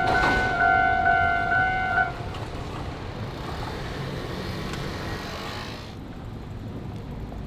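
Japanese level-crossing warning bell ringing its repeating electronic "kan-kan" clang, then stopping about two seconds in. A steady rush of passing vehicle noise follows, fading near the end.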